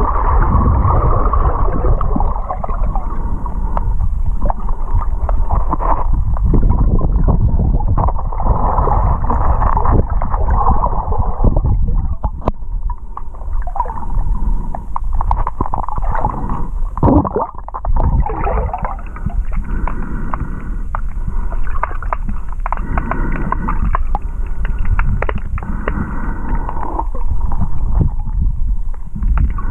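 Muffled underwater rumble and gurgle of flowing river water, heard through a submerged camera, with scattered small knocks and ticks.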